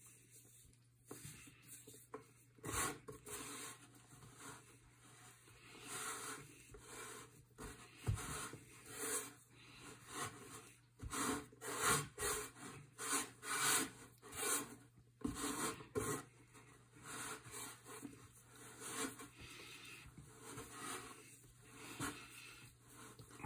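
Hands kneading and pressing semolina-and-egg pasta dough on a floured wooden board: irregular rubbing and scraping strokes, roughly one a second, over a faint steady low hum.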